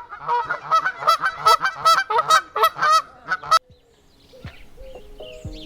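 Domestic goose honking: a rapid run of loud, nasal honks, about four a second, that cuts off suddenly about three and a half seconds in.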